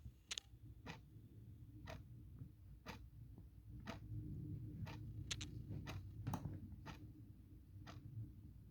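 Clock ticking, a sharp tick about once a second, with a few extra clicks in the middle. A faint low rumble runs underneath.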